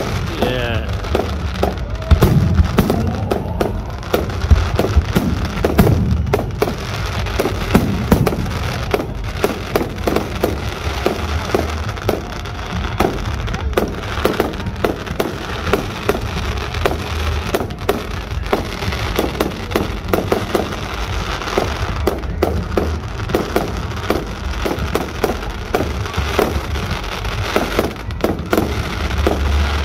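Fireworks display going off in a dense, continuous run of bangs and crackling, many shell bursts a second with no pause.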